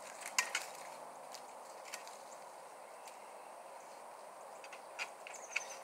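Scattered snaps and crackles of azalea twigs and dry leaf litter as someone pushes through the bushes searching the ground, over a quiet outdoor background, with a brief high chirp near the end.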